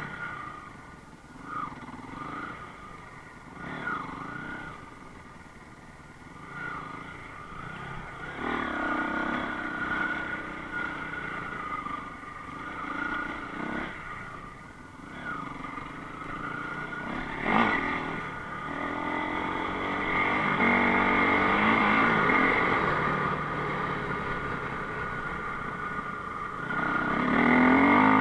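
Enduro motorcycle engine running and revving as it is ridden off-road, the throttle opening and easing off repeatedly and the engine getting louder toward the end. A single sharp knock comes a little past halfway.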